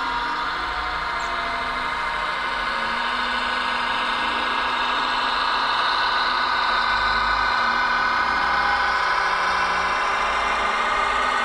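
Diesel multiple-unit engine sound from a 00 gauge model train, a steady engine note that grows gradually louder and rises slightly in pitch over the first half.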